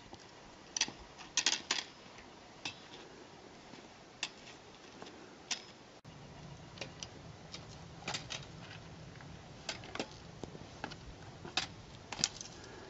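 Footsteps on rough, uneven trail ground: irregular sharp clicks and scrapes, sometimes several in quick succession, with gaps of a second or more between them.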